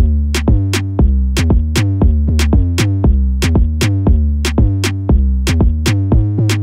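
Background music: an electronic drum-machine beat over a deep synth bass line, about three beats a second.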